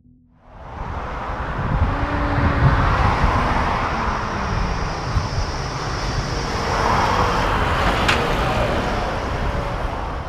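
Volvo A60H articulated hauler's 16-litre diesel engine running under load as the machine drives, a steady heavy rumble with tyre and machine noise. It fades in about half a second in, and there is a single sharp click about eight seconds in.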